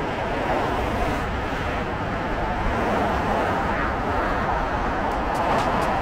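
Wind rushing over the microphone with road and traffic noise while riding an electric scooter, a steady low rush. About five seconds in, a fast light ticking, about five a second, starts.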